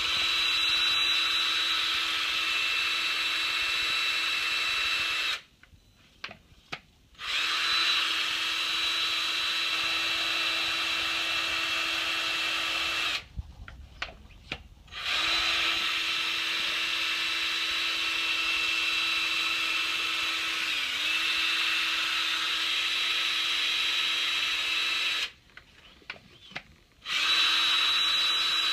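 Small electric motor of a "Spin It Off" black sand magnetic separator wand running with a steady whine. It stops three times, for a couple of seconds each, with a few faint clicks while it is off, then starts again.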